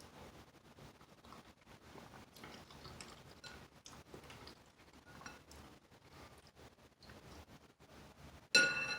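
Quiet eating sounds with faint chewing and small clicks. Near the end comes one loud clink of a utensil against a dish, ringing briefly as it fades.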